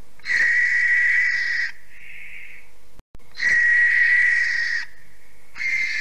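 An owl calling: long whistled notes, each held on one steady high pitch for over a second, three in a row with the last starting near the end. A steady hiss runs underneath, and the sound drops out completely for a moment between the first and second calls.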